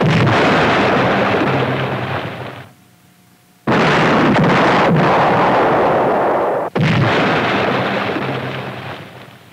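Depth charges exploding: three heavy blasts about three seconds apart, each dying away over two to three seconds.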